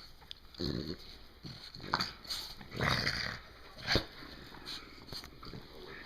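A pet dog making a handful of short vocal noises with pauses between, the longest about three seconds in and a sharp one about a second later.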